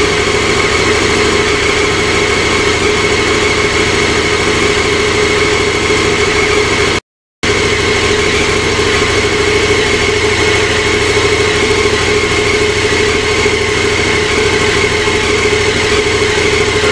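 KTM 1290 Super Adventure R's V-twin engine idling steadily, broken by a brief dropout about seven seconds in.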